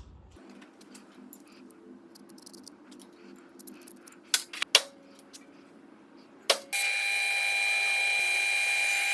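A few light metal clinks and knocks, then a click, and an electric power tool starts and runs at a steady speed with a high whine and hiss.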